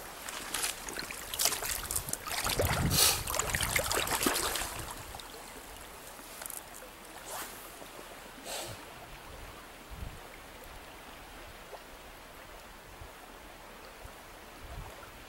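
Shallow stream flowing over riffles, with splashing water from wading steps for about the first five seconds, then the steady flow alone.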